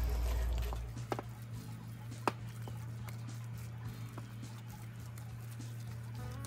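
A spatula stirring a thick, wet cheese and broccoli filling in a stainless steel bowl: soft squishing with irregular clicks of the spatula against the bowl, the sharpest about two seconds in.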